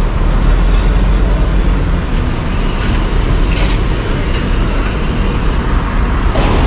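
Large diesel coach engine idling close by: a steady low rumble, with a brief hiss about three and a half seconds in.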